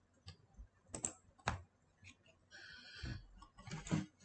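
A few scattered, sharp clicks on a computer keyboard, with a short burst of noise a little past halfway.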